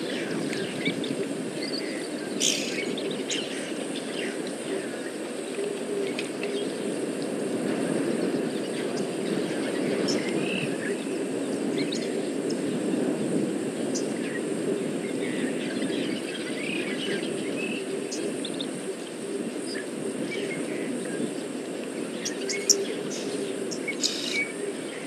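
Outdoor bush ambience: scattered bird chirps and short calls over a steady low rushing noise.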